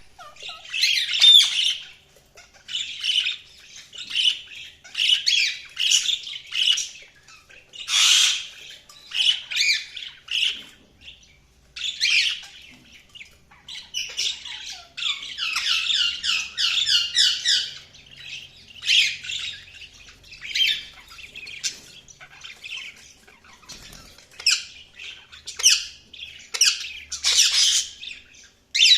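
Budgerigars chirping and warbling in irregular bouts of short high chirps, with brief pauses between, and a fast chattering run in the middle.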